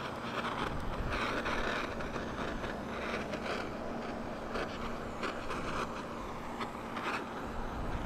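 Handheld butane micro torch burning with a steady hissing flame while it shrinks adhesive-lined heat-shrink tubing over crimped wire splices.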